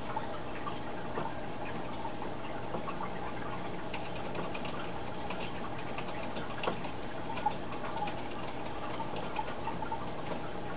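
Steady running-water hiss of an aquarium filter and air bubbler, with scattered faint ticks and pops at irregular intervals.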